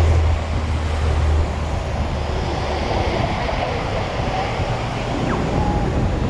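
Wet city street ambience: a steady wash of traffic and tyre noise, with a deep vehicle engine hum that fades after about a second and a half.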